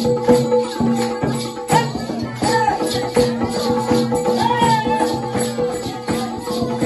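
Folk dance music with a fast, steady beat of rattling percussion over a held drone, and a melody line that rises and falls a couple of times.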